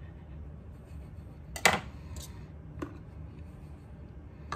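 A nearly empty mayonnaise jar held upside down over a bowl and shaken to get the last of it out: one sharp knock about a second and a half in, and two fainter knocks later, over a low steady hum.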